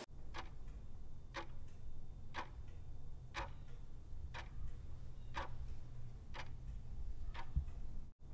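A clock ticking about once a second over a low, steady hum. The hand mixer's motor whine is not heard.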